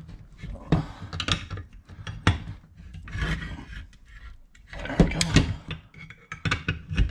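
Wrench and threaded steel gas pipe being forced loose from a gas control valve: irregular metal clicks and knocks with stretches of scraping as the tight threads give.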